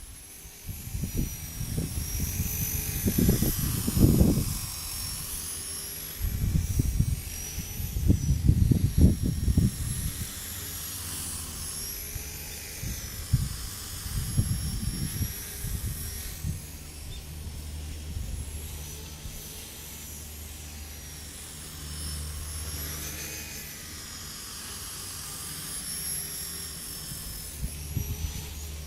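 Align T-REX 250 electric RC helicopter flying, its high motor and rotor whine wavering up and down in pitch as it works against the wind. Strong gusts of wind buffet the microphone in the first half.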